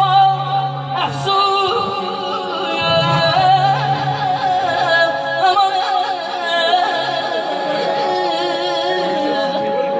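Music with singing: a voice carrying a wavering, heavily ornamented melody over steady held accompanying tones.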